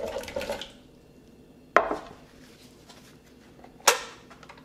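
Cut strawberries and kiwi tumbling out of a glass bowl into a blender jar with a brief clatter. Then hard kitchenware knocks sharply twice on the counter, about two seconds apart.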